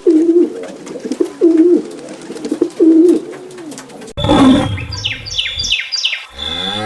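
A pigeon cooing: three low, throaty coos about a second and a half apart. Then, after an abrupt change about four seconds in, a different sound takes over: a run of quick, high, falling chirps.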